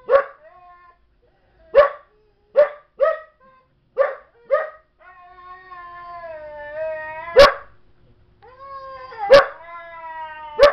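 A young Belgian Malinois barking in short sharp barks, about six in the first five seconds and a few more later. From about five seconds in, a husky answers with two long drawn-out calls that waver in pitch while the barking goes on over them.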